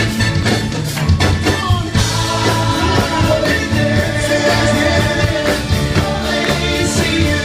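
Live soul music: a vocal group singing over a band with a steady bass and drum beat, with drum hits clearest in the first couple of seconds.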